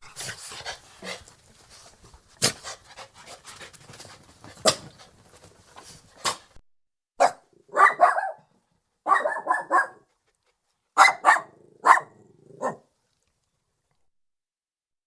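A Lhasa Apso, a small dog, barks in short bursts: several quick barks in groups over about six seconds. Before the barking there are a few seconds of rustling with sharp clicks.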